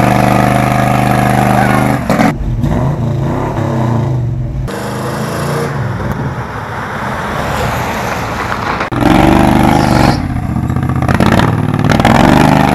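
Engines running and revving in a string of short clips that change abruptly every few seconds. It opens with a small single-cylinder engine on a go-kart frame running steadily.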